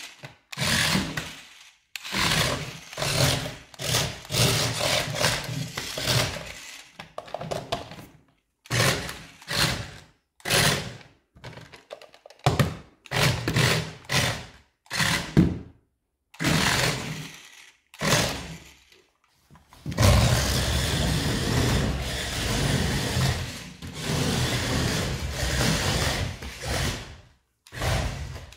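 Sonic Prime RC toy motorcycle's small electric motor and gears whirring in short bursts of about a second each as it is driven in stops and starts, with one longer run of several seconds near the end.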